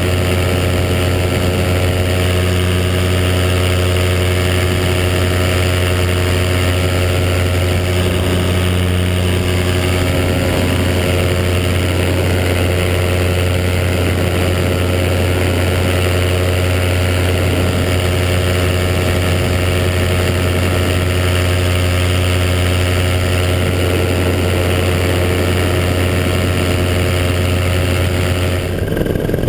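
A Flattop Ninja paramotor's engine running at a steady speed, a constant low drone over a hiss of rushing air.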